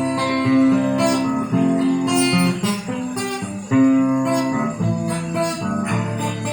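Acoustic guitar playing an instrumental passage between sung verses, plucked and strummed notes over a bass line.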